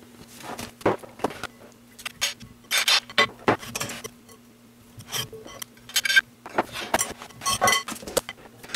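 Irregular clinks and knocks of a utensil and fruit against a ceramic mixing bowl as a fruit salad is mixed and arranged, a few strikes ringing briefly. A faint steady hum runs underneath.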